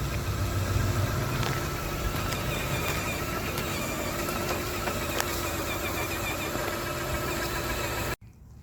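RC scale truck driving, its motor and gears giving a steady whine over a rough mechanical rattle, with a few light clicks. It stops abruptly near the end.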